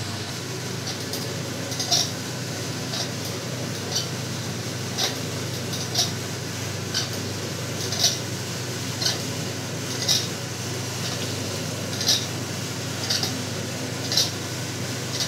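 Electric atta (flour) kneading machine running: a steady low motor hum as its steel mixing arm turns flour and water into dough in a stainless steel bowl, with a light metallic clink about once a second.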